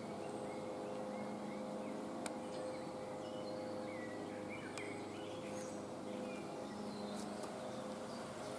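Woodland ambience: scattered short bird chirps over a steady low hum, with a few faint clicks.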